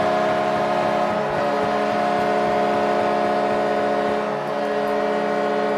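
Arena goal horn sounding one long, steady note for a home-team goal, over a cheering crowd.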